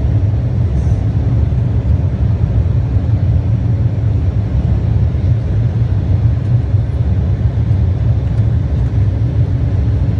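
Steady low rumble of an aeroplane cabin in flight: engine and airflow noise heard from inside, with a faint steady hum over it.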